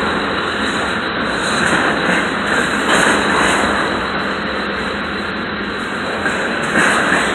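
Freight train cars rolling past on the track: a steady rushing noise of steel wheels on rail that swells a little about three seconds in and again near the end.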